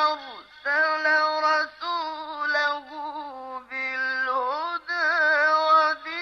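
A male Quran reciter's voice in melodic mujawwad-style recitation, with no added echo. He sings several phrases of held notes with wavering ornaments and pitch turns, each broken off by a short breath.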